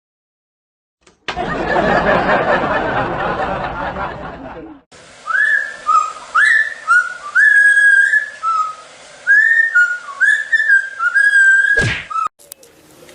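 A few seconds of loud rushing hiss, then a run of short, high whistled notes, each swooping up in pitch.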